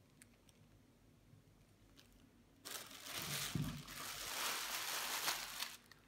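Thin plastic packing bag crinkling as it is handled and crumpled, starting about halfway through and lasting about three seconds, with a dull bump among it.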